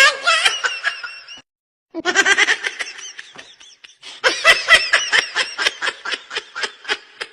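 Baby laughing in quick, rhythmic, high-pitched bursts. It breaks off to a brief silence after about a second and a half, starts again, and grows louder from about four seconds in.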